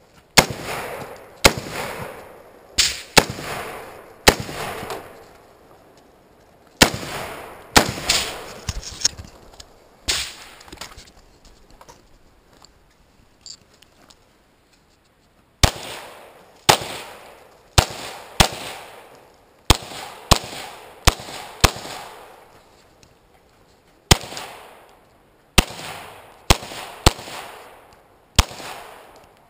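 Semi-automatic pistol fired shot by shot in a long string, roughly one shot a second, each crack trailing off in an echo, with a pause of a few seconds partway through.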